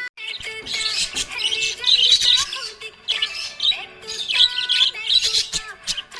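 Budgerigar chirping and warbling in quick runs of high chirps and trills, over background music.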